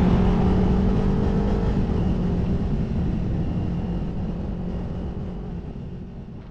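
Motorcycle engine running at road speed with heavy wind rush, fading out gradually.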